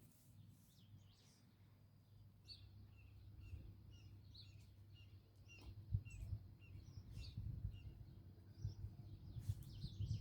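Faint bird chirping: a run of short, evenly spaced chirps, about two to three a second, with a few higher calls over them. A low rumble, like wind on the microphone, comes in from about six seconds.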